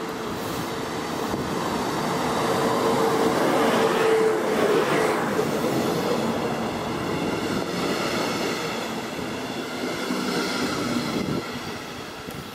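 DB class 111 electric locomotive pulling double-deck coaches past while departing. A steady hum grows to its loudest as the locomotive goes by about four seconds in. The coaches' wheels then rumble past with thin high squeals, fading as the train pulls away.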